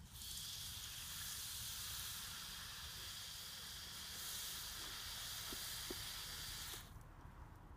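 Garden hose spray nozzle hissing steadily as a shower of water falls onto grass, stopping abruptly near the end.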